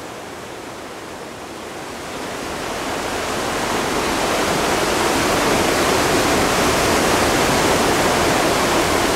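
Lake waves breaking and washing onto a rocky shore: a steady rush of surf that grows louder about two seconds in and then holds.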